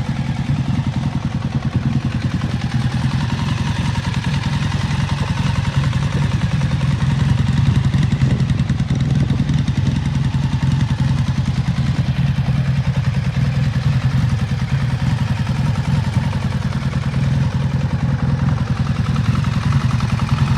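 1984 Honda V65 Sabre's 1100 cc V4 engine running steadily through its stock exhaust, a low, even drone that barely changes in pitch or level.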